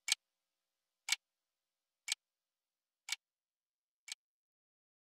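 A clock ticking about once a second, each tick a quick double click, fading away over the last few ticks.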